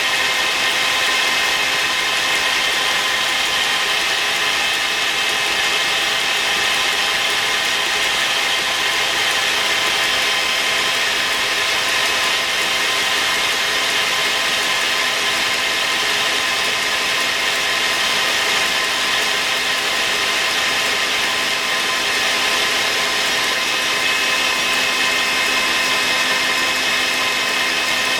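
Electric mixer running steadily as it whips duck egg whites toward stiff peaks, a constant motor whine with no change in speed.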